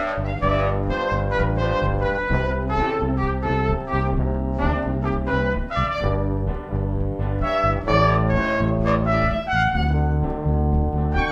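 Background music: a melody of changing pitched notes over a sustained bass line.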